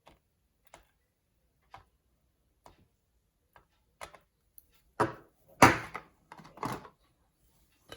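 Small metal lock pins and tweezers clicking and tapping on a hard surface as the pins from a gutted cylinder are laid out: single light clicks every second or so, then a louder cluster of clatters about five to seven seconds in.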